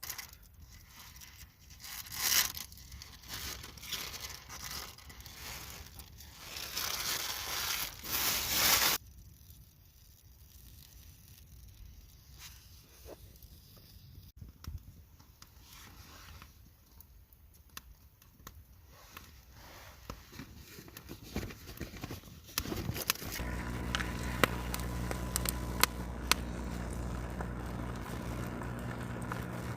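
Crinkling and rustling handling noises in irregular bursts. Then, about three-quarters of the way in, a steady low hum with a faint high whine starts and keeps going.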